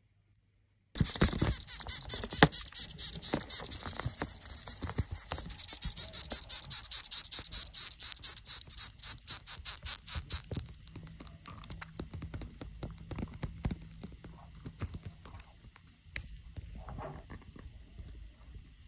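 Death's head hawkmoth squeaking: a rapid train of short, high-pitched squeaks, several a second, starting abruptly about a second in and growing fainter and sparser after about ten seconds. The moth makes these squeaks by forcing air through its proboscis, a defensive call while it is being held.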